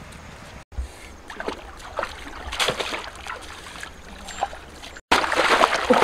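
Water splashing and trickling in a shallow rocky stream as a woven basket is dipped and moved through it, with small irregular knocks and splashes; the splashing gets louder in the last second.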